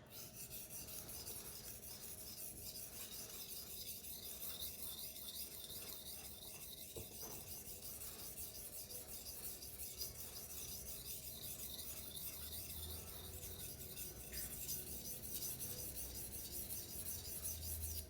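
Steel knife blade (a CJRB Silax) being stroked back and forth on a wet King Deluxe 800-grit waterstone: a steady run of scraping strokes as a burr is raised on the first side of the edge.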